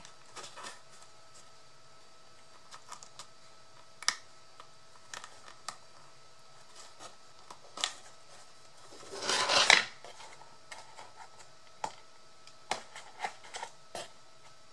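Hands handling paper craft materials at a work table: scattered light clicks and taps, with one longer scratchy rustle about nine seconds in.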